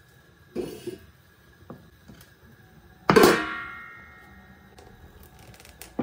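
Kitchen handling noises at a wooden dough board: a soft knock about half a second in, then about three seconds in one loud clang that rings on for nearly a second.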